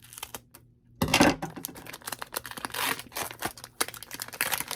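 Foil Pokémon booster pack wrapper crinkling and tearing as it is opened, with a louder burst about a second in followed by irregular crackling.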